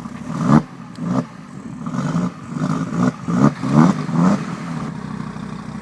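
Audi TT RS 2.5-litre turbocharged five-cylinder engine revved in a quick series of about eight short throttle blips, each rising in pitch and dropping straight back. After about four and a half seconds it settles to a steady idle.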